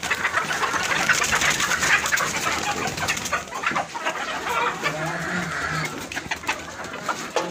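Desi hens clucking, over many short rustling clicks.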